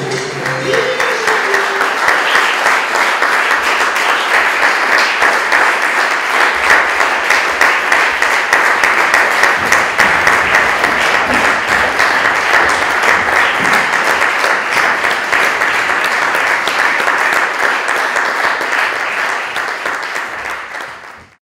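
Theatre audience applauding steadily, a dense patter of many hands, fading out near the end.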